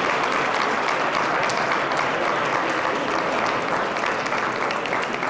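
Audience applauding steadily, a dense patter of clapping that eases slightly near the end.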